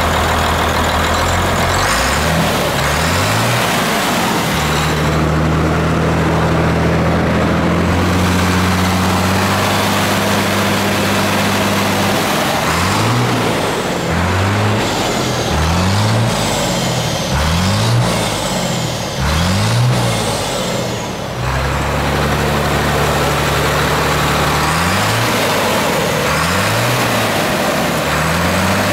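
Ford 7.8L turbocharged inline-six diesel truck engine running and being revved: raised and held at higher speed for several seconds, then blipped up and down repeatedly in quick rev-ups, settling back to idle between them.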